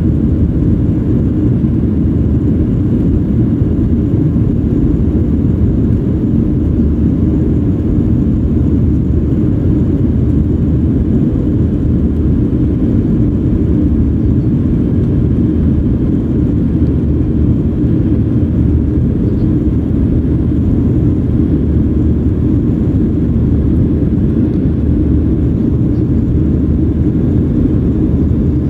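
Cabin noise inside a Boeing 737-800 in the climb after takeoff. The CFM56-7B engines at climb power and the airflow over the fuselage make a steady, loud, deep rumble.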